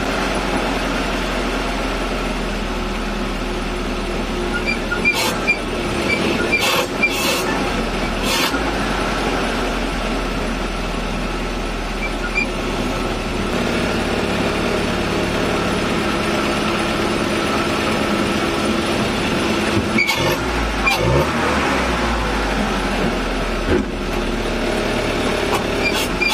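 The 2.5-litre four-cylinder petrol engine of a 1981 UAZ 452 van running on a single SU carburettor, heard from inside the cab while the van is driven, its jet just set one flat richer. The engine note shifts a couple of times, with a few short knocks and rattles from the cab.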